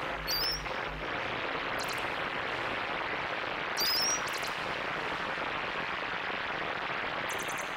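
Elektron Digitone synthesizer playing an ambient patch: a steady hiss-like noise wash of synthesized water, with short rising electronic chirps about half a second in and again about four seconds in, and a few sharp clicks. Low bass notes fade out about a second in.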